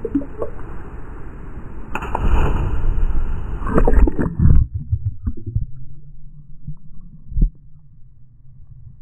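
Sea water sloshing and splashing around a camera at the surface, with a person's plunge into the sea splashing loudly about four seconds in. Then the camera goes under and the sound turns to a muffled underwater rumble, with one dull knock near the end.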